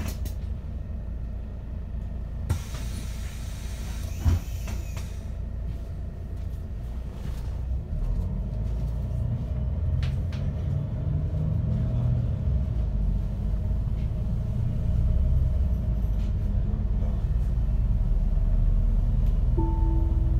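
MAN Lion's City city bus heard from inside while driving: a steady low engine and road rumble that grows louder about eight seconds in. Two sharp knocks come in the first few seconds.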